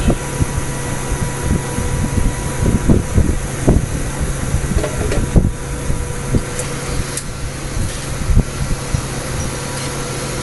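Steady hum of workshop machinery, with irregular low bumps and knocks from hands handling the machine's fixture parts, most frequent in the first few seconds and once more near the end.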